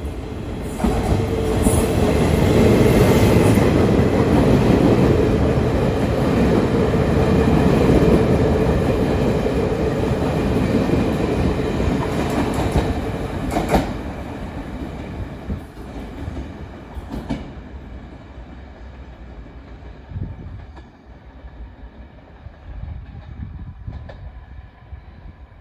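Taiwan Railways E400 electric locomotive and its string of passenger coaches passing through a station without stopping: a heavy rolling rumble of wheels on rail with a steady hum, loudest in the first half, then fading away as the train draws off.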